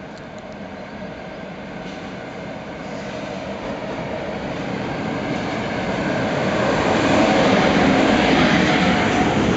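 DB class 189 electric locomotive hauling a container freight train, approaching and passing: the sound of the locomotive and the wagons on the rails grows steadily louder and is loudest in the last few seconds as the locomotive goes by.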